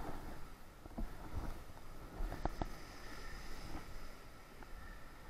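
Uneven low rumble of wind and sea on the microphone, with a few scattered sharp clicks and knocks.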